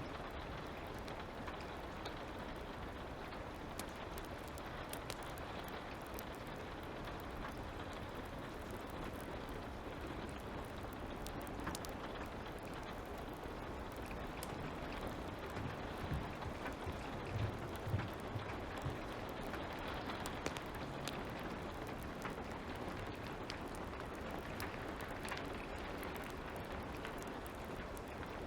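Light rain falling steadily, mixed with a crackling fire's scattered small pops and snaps. A few louder soft thumps come about two-thirds of the way through.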